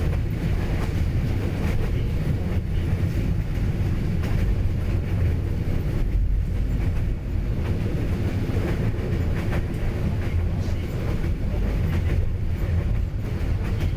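A train running along the track: a steady low rumble with faint wheel clicks over the rail joints.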